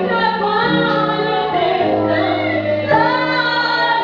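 A woman singing a gospel worship song in Portuguese with sustained, gliding notes over an instrumental accompaniment with held bass notes.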